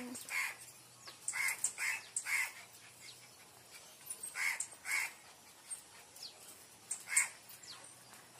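Birds calling: a scatter of short harsh calls, several in quick succession at first and a few more spaced out later, with faint high chirps between.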